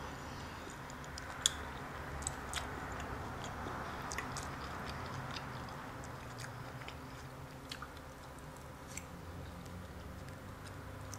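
A person chewing forkfuls of loaded carne asada fries close to a clip-on microphone, with a few sharp clicks scattered through.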